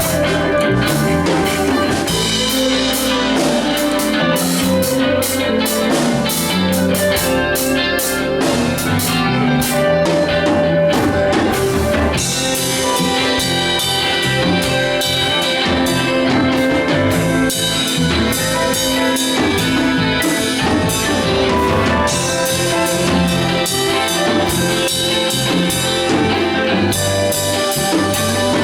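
A band playing together: a drum kit keeping a busy, steady beat on the cymbals, with guitar and other pitched instruments over it.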